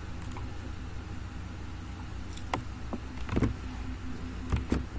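A steady low electrical hum with a few sharp clicks, the first about halfway and two more near the end: mouse clicks advancing a computer slide show to its end screen.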